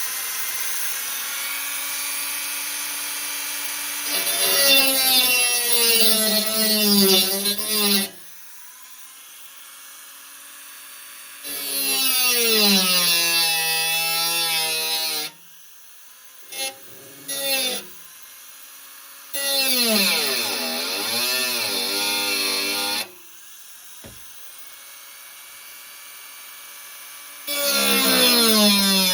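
Small rotary tool with a cutoff wheel grinding sheet metal, shaping a rough hole round, in bursts of a few seconds with short pauses. The motor's whine drops in pitch each time the wheel bites into the metal and rises as it lets off.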